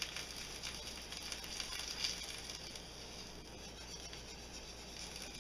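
Wire whisk stirring a hot, thickening lemon sauce in a skillet: a steady wet patter with light irregular crackling and ticks, busiest in the first couple of seconds.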